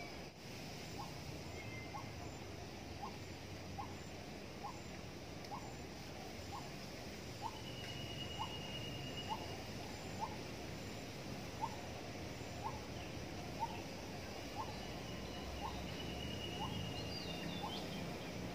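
A bird repeating a short, clipped upward note evenly about once a second, with another bird's thin high whistles now and then, over a steady low hum of distant city background.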